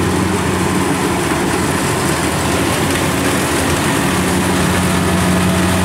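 Kubota DC-70 rice combine harvester running steadily while harvesting: a constant diesel engine hum mixed with the even rushing noise of the cutting and threshing machinery.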